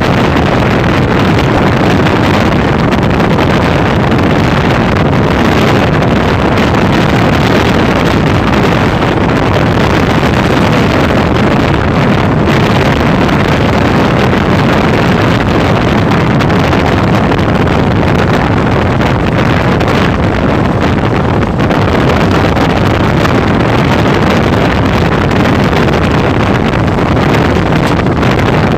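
Steady rush and rumble of a passenger train running at high speed, with wind buffeting the microphone.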